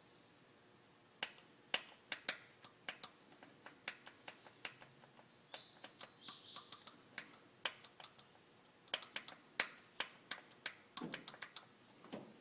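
A series of sharp, irregularly spaced clicks and taps, with a brief hiss about halfway through.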